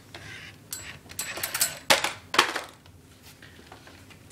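Plastic clattering and knocking from a Spygear ATV tracked toy vehicle handled roughly in a durability test, a quick run of clicks with two sharp knocks about two seconds in.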